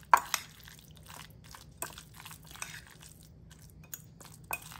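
Metal fork stirring and mashing salmon salad with mayonnaise in a glass bowl: soft wet crunching and squishing, with a few sharp clicks of the fork against the glass, the loudest just at the start.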